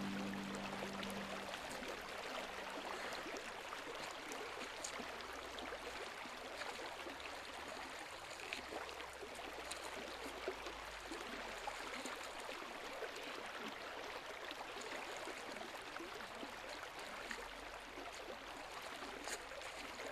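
Stream water running steadily, with a few faint small ticks over it.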